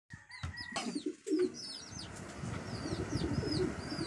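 Small birds chirping in quick falling notes over the low cooing of doves, with a few knocks near the start.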